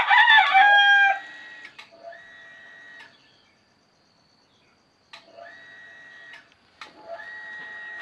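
Roosters crowing: one loud crow right at the start, then three fainter crows follow, each ending on a long held note.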